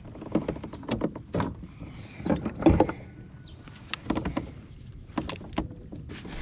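Irregular knocks, clicks and rustling as a northern snakehead in a rubber-mesh landing net is handled against a plastic fishing kayak while the lure is worked free. The loudest knock comes a little under three seconds in.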